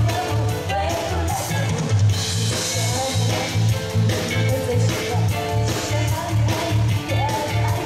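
A live band plays an upbeat pop song with a steady, driving bass-and-drum beat, while a woman sings the melody into a microphone.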